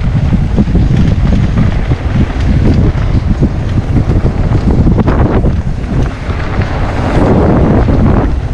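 Heavy wind buffeting on a GoPro Hero 9's microphone as a mountain bike rides downhill at speed, with frequent knocks and rattles over rough trail.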